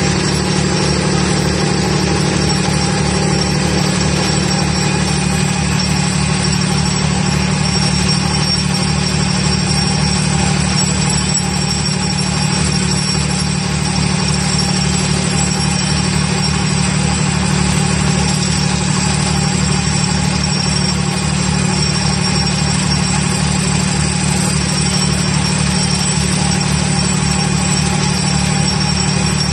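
Vibratory pile-driving hammer running with its machine engine, a loud, steady low drone with a fast, even pulsing throughout.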